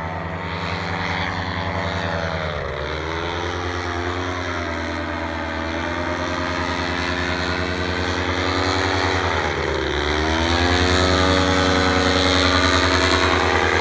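Propeller aircraft engine running steadily, its pitch dipping briefly twice, about three seconds in and again near ten seconds, then coming back up, and a little louder toward the end.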